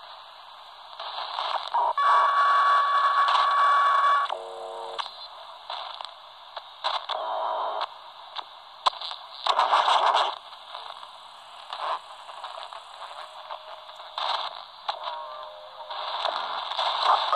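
Albrecht AE2990 AFS handheld CB transceiver's speaker hissing and crackling with static as it steps across 27 MHz frequencies, with louder bursts of signal as it passes them. The first burst, about two seconds in, carries a steady whistling tone for about two seconds.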